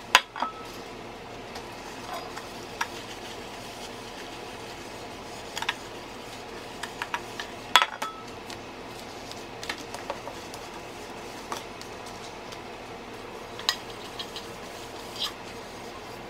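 Round aluminium cake pan being greased with a buttered paper towel: scattered light clinks and knocks of the metal pan, the loudest near the start and about eight seconds in, over a steady low hum.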